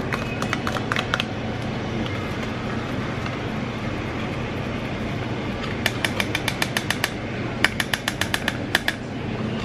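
Plastic spoon scraping and tapping wet dog food from a plastic container into a collapsible plastic dog bowl, with a few clicks at the start and two quick runs of rapid taps in the second half. A steady low hum sits underneath.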